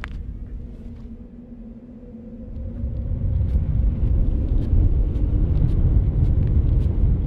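Wind buffeting the microphone on open lake ice: a low rumble that grows louder about two and a half seconds in and stays strong, over a faint steady hum early on.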